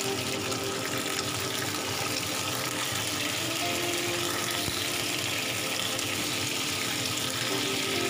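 Chicken wings sizzling steadily as they shallow-fry in hot oil in a wok.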